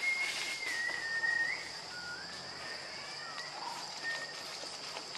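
Clear whistle-like calls over a steady high-pitched buzz. The first call is long and dips slightly in pitch before turning up at its end. A lower call follows that slides upward, then a brief one near the end.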